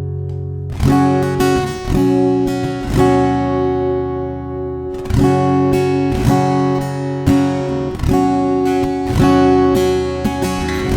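Giannini SF14 steel-string acoustic guitar being strummed: chords struck about once a second, each left ringing into the next.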